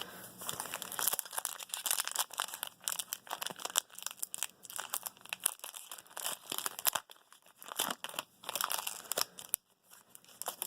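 Trading cards and their foil pack wrapper being handled, giving a run of irregular crinkling and crackling with a few short pauses.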